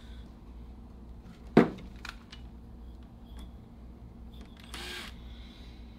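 Tools and small parts handled during a hands-on engine install: a sharp clack about one and a half seconds in, a few light ticks, and a short scraping rustle near the end, over a low background hum.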